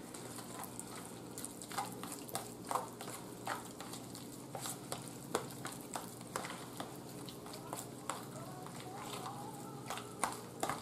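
A fork stirring and mashing potato salad in a plastic container: irregular scrapes and clicks of the utensil against the plastic, about one or two each second.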